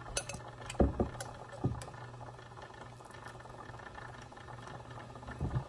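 Clinks and knocks of metal tongs against a stainless stockpot and glass bowl as pineapple cores are lifted out of hot simple syrup, a cluster in the first two seconds and one more near the end. Underneath, glass canning jars rattle in the water-bath canner as they warm.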